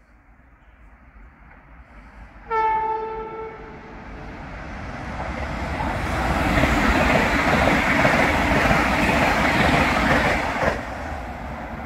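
ETR 600 Frecciarossa high-speed electric train sounding one short horn blast about two and a half seconds in, then running through the station at speed. Its wheel and air rush swells as it passes, then drops off suddenly near the end to a lower rumble.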